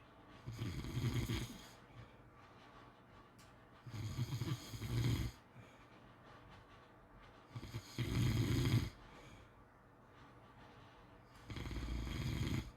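Pit bull snoring in its sleep: four snores, each about a second long, coming about every four seconds.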